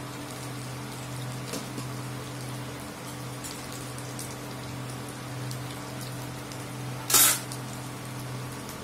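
Cornflour-battered ivy gourd pieces deep-frying in hot oil in an iron kadai: a steady bubbling sizzle like rain, over a steady low hum. About seven seconds in there is one brief, loud burst of crackle.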